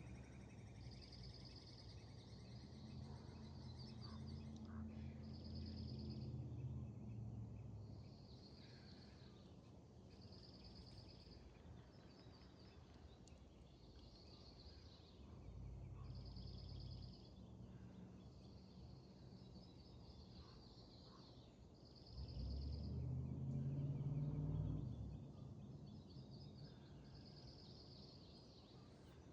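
Songbirds singing, with short high phrases repeating about every two seconds, some of them fast trills. A low hum comes and goes underneath and is loudest about three-quarters of the way through.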